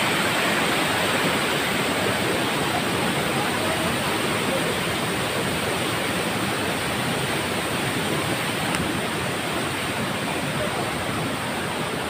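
A waterfall: a steady, even rushing of falling water.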